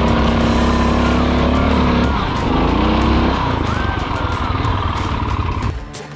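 Rokon Trailbreaker 2x2's 7 hp Kohler single-cylinder engine running steadily under throttle. About two seconds in its pitch drops and wavers as the throttle comes off, and it runs lower and rougher after that. Near the end the engine gives way to background music with a whistled tune.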